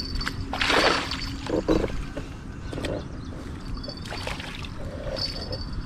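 Water splashing and sloshing as a hooked carp thrashes in the shallows and is grabbed by hand. It comes in several irregular bursts, the loudest about a second in.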